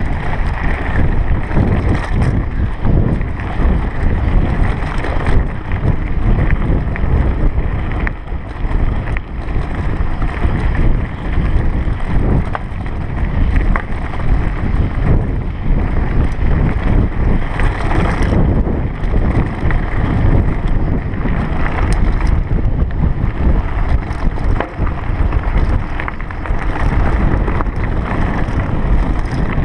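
Mountain bike rolling fast down a rocky dirt trail: a steady rumble and rattle from tyres and frame over stones, with a few sharp knocks. Heavy wind buffets the microphone throughout.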